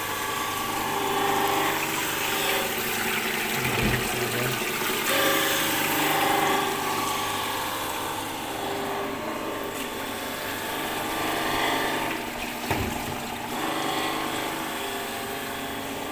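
Knife-grinding machine running steadily as its grinding wheel works along a steel cutting blade, with two dull knocks partway through.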